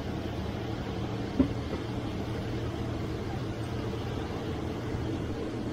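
Steady drone of a passenger train running along, with a low hum under an even rumbling noise. A single sharp knock comes about a second and a half in.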